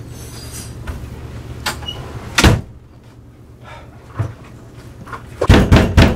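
A wooden door shut with a loud thud about two and a half seconds in, then a quick cluster of four or five loud knocks near the end.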